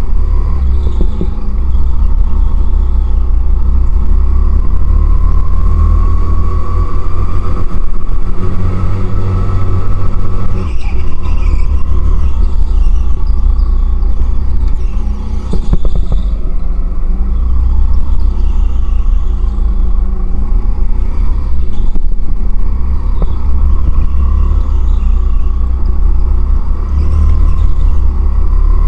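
Go-kart driven at racing pace, heard from the kart: a heavy low rumble, with a whine that rises and falls over and over as the kart speeds up and slows.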